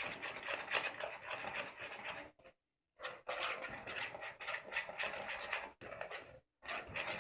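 A spoon stirring and scraping a glue-and-water mixture in a plastic bowl as borax water is added to turn it into slime, a scratchy, sticky rubbing that breaks off briefly partway through.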